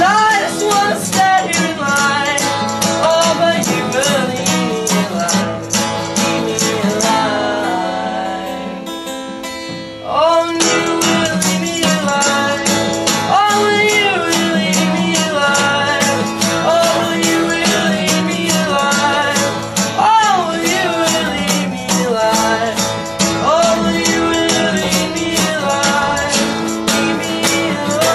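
A live song: a guitar strummed steadily under a singing voice. The playing thins out and softens about eight seconds in, then comes back in full at about ten seconds.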